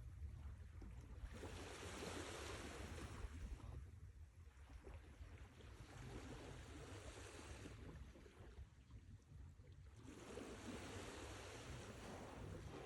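Sea waves breaking and washing in, three swells of surf about four seconds apart, each rising and falling away, over a steady low rumble.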